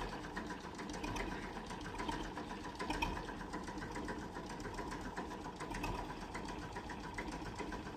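A small engine running steadily with a fast, even mechanical ticking clatter.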